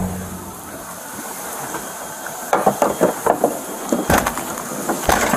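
Footsteps on wooden stairs: a quick run of knocks on the boards starting about halfway through, then two heavier thumps near the end.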